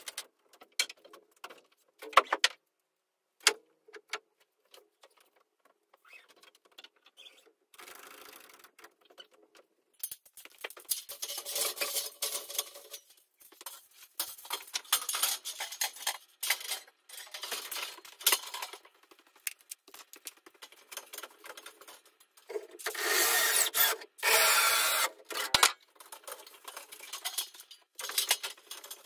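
Aluminium ladder being handled and slid against wooden wall framing: scattered knocks and clicks, then long rubbing scrapes, loudest about three-quarters of the way through.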